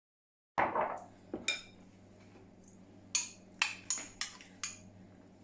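Cooked mussels in their shells being handled on a serving dish: about nine short, sharp clinks of shell and crockery, starting suddenly about half a second in, over a faint steady low hum.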